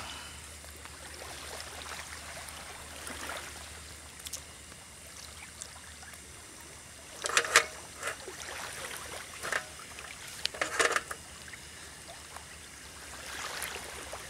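Hot oil sizzling and bubbling steadily in an enamel pot on a portable gas stove, with a few sharper spattering bursts, the loudest about seven and eleven seconds in, as whole squid cook in it.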